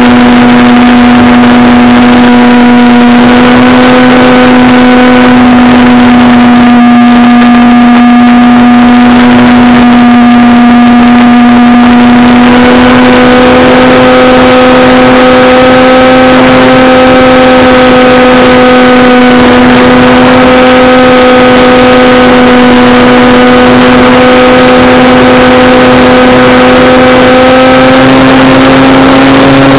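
Electric motor and propeller of a Tidewater RC seaplane in flight, heard close from a camera on board: a loud, steady whine holding its pitch, rising slightly near the end, over a constant rush of wind.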